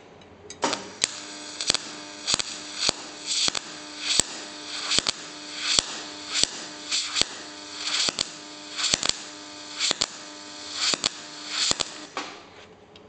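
MIG/MAG welding arc with the wire feed set too slow for the voltage: a steady hum and hiss broken by irregular pops about twice a second, a slightly popping sound that is the sign of too little wire being fed. The arc strikes about half a second in and stops about a second before the end.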